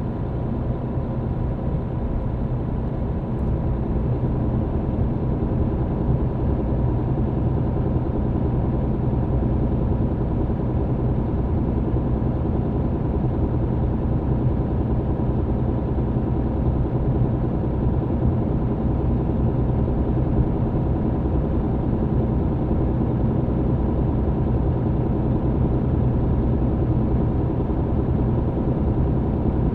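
A MAN TGX truck's diesel engine and road noise heard inside the cab while driving at a steady pace: a low, even drone that barely changes, with a faint steady whine above it.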